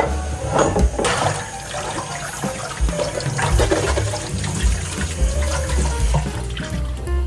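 Tap water running and splashing into a sink, as when washing fridge shelves or drawers.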